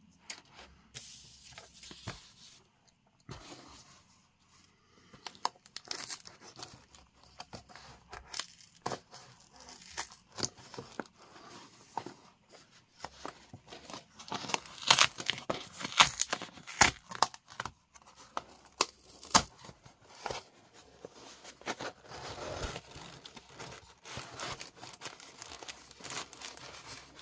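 Cardboard shipping box being cut and torn open by hand: packing tape ripping, cardboard flaps scraping and plastic air-pillow packing crinkling, in irregular rasps and clicks that come thickest about halfway through.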